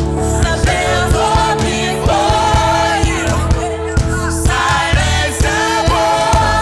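Gospel worship music: singers hold long notes over a band, with regular drum hits.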